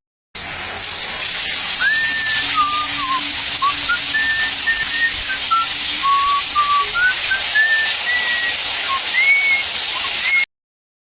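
A string of short whistled notes at changing pitches, some held level and some sliding up, over a steady hiss like running water. Both stop abruptly near the end.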